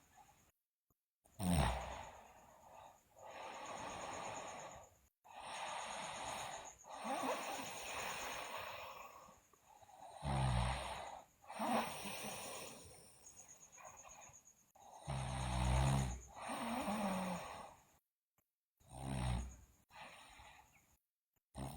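A sleeping girl snoring: a string of loud, buzzing snores with breathy breaths between them. The sound cuts out to silence suddenly a few times.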